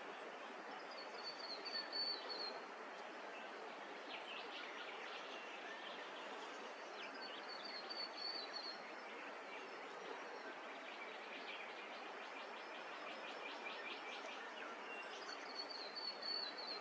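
Wild birds calling in eucalypt bush over a steady background hiss. A short high trilled phrase comes three times, about six to seven seconds apart, and runs of rapid chattering trills fall between them.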